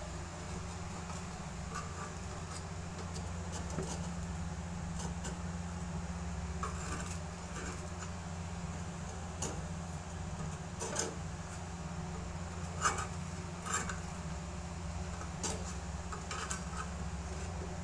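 A metal spatula scraping and tapping against a clay pan as rice cakes are shifted and turned, in scattered short scrapes and clicks, the loudest about two-thirds of the way through. A steady low hum runs underneath.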